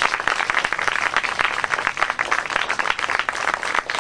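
A crowd applauding, many hands clapping steadily.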